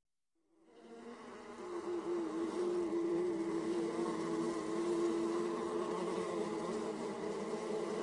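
Honeybees buzzing in flight: a steady hum that fades in over the first second or two, then holds with a slight waver in pitch.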